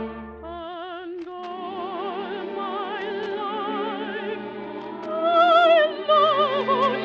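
Operetta music from an old radio broadcast recording: an orchestra plays a vibrato melody over sustained chords. The music thins briefly near the start, then fills out again and swells louder about five seconds in.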